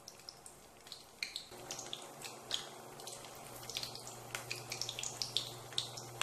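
Chana dal vadas deep-frying in hot oil in a steel pan: an irregular sizzling crackle with sharp pops, growing busier about a second and a half in as another vada goes into the oil. A low steady hum starts at the same point.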